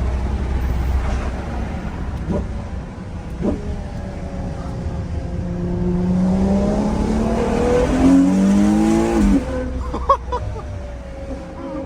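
Ferrari Purosangue's V12 engine accelerating hard under the occupants: the engine note climbs steadily from about six seconds in, steps up once near eight seconds, then cuts off sharply as the throttle is lifted just after nine seconds, followed by a couple of sharp clicks.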